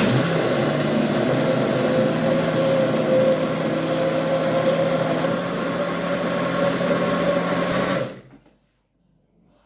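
Electric kitchen blender running at a steady speed, puréeing soaked, peeled beans with peppers and onions for moi moi; its motor hum holds steady for about eight seconds, then it is switched off and winds down.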